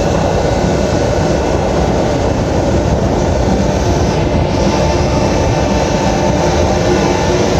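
Steady, loud rumble of a ferry's engines running as the ship gets under way, heard inside the passenger cabin.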